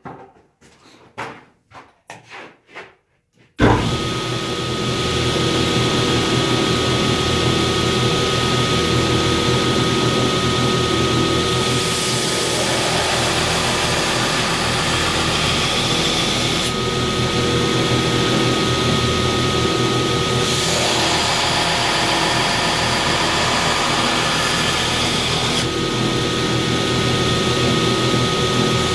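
A few light knocks, then from about three and a half seconds in a belt grinder runs steadily with a thin whine while a hardened, heat-treated steel knife blade is ground on its coarse 36-grit belt, the grinding noise shifting every few seconds.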